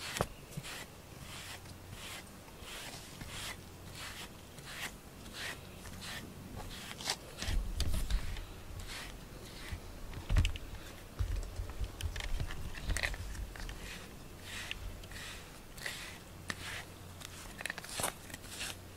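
Rubber grooming brush stroked through a cat's fur: a steady series of short rasping strokes, roughly two a second, with a few low bumps of handling in the middle.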